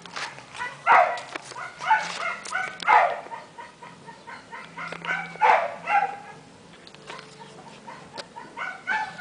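Short, loud animal calls, a cluster of several in the first three seconds, two more around five to six seconds, and another near the end.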